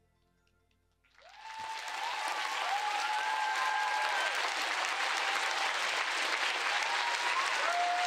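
The music's last faint note dies away, and about a second in a theatre audience starts applauding. The applause swells quickly and holds steady, with cheering voices over it.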